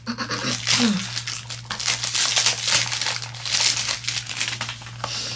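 Perfume box being opened by hand and the bottle pulled out of its packaging: the packaging rustles in quick, irregular strokes. A steady low hum runs underneath.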